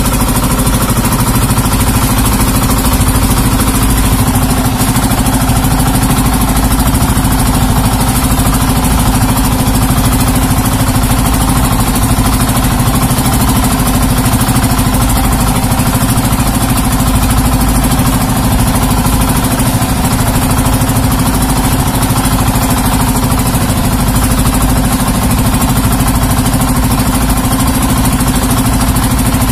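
The engine of a Filipino outrigger fishing boat (bangka) running steadily at a constant speed, with a low hum and a hiss over it.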